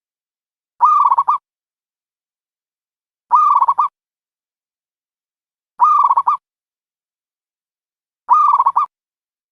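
Dove calling: a short broken coo, about half a second long, repeated four times at an even pace of about one every two and a half seconds.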